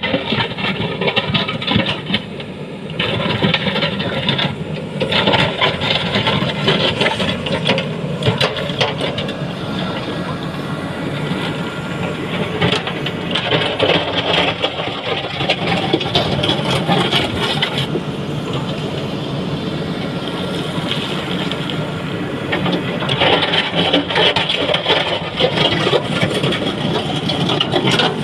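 JCB backhoe loader's diesel engine running under load while its bucket scrapes and rattles over an old road surface, with the grinding growing louder at times.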